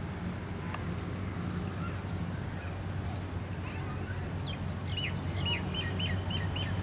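Diesel locomotive engine droning as the train approaches, slowly growing louder. Over it, birds call, with a quick run of six chirps about five seconds in.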